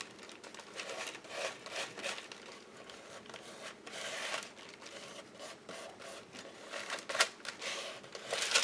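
Paper collage pieces being handled and rubbed down in a glue book: soft, irregular rustling and rubbing, with a sharp tap about seven seconds in.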